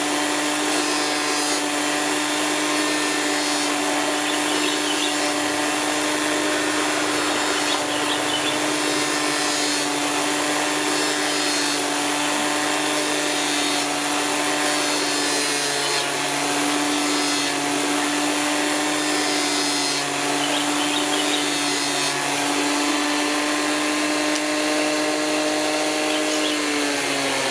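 Electric gemstone grinding and polishing machine running with a steady motor hum while an agate stone is ground against its wheel. Near the end the motor's pitch drops as it winds down.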